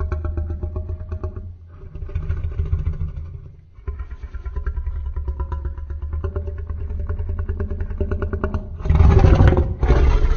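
Edited creature sound effect for a fictional hybrid dinosaur: a deep rattling growl built from animal and monster sounds, in three long stretches with short breaks between, then a louder, harsher snarl about nine seconds in.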